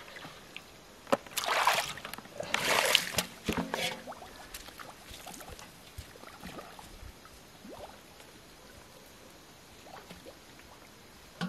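Water splashing out of a metal basin as it is tipped and emptied: two splashes, the first about a second and a half in and a longer one about three seconds in, then only faint scattered sounds.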